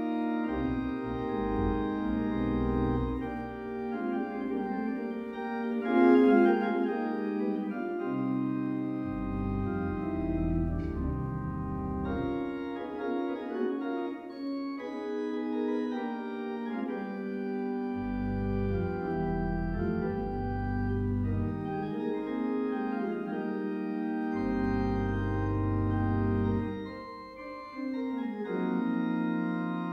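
Organ playing a slow prelude in sustained chords, with deep bass notes that come in and drop out every few seconds.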